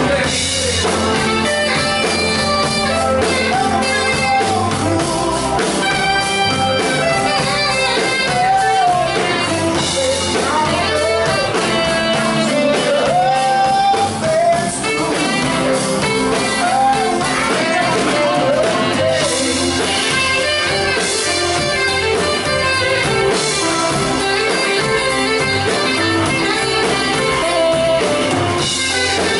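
Live blues-rock band: a tenor saxophone plays a wavering melodic line over electric guitar and a drum kit.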